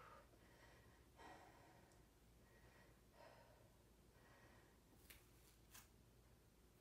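Near silence, broken by two faint breaths, about one and three seconds in, and two faint clicks near the end.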